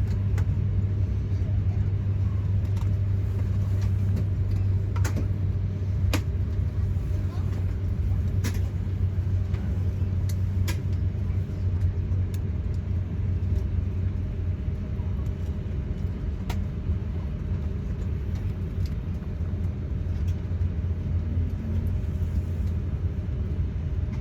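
Steady low hum inside an Airbus A350-900's passenger cabin, with a few faint clicks and knocks scattered through it.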